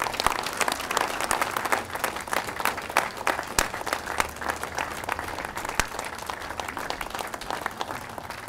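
Crowd applauding, many hands clapping at once; the applause tapers off near the end.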